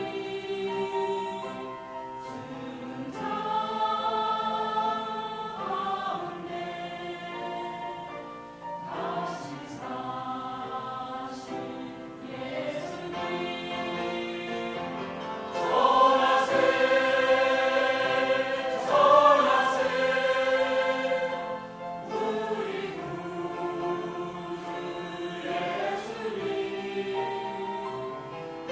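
A choir singing a praise hymn, many voices holding long notes that move every second or two; the singing swells louder for several seconds past the middle.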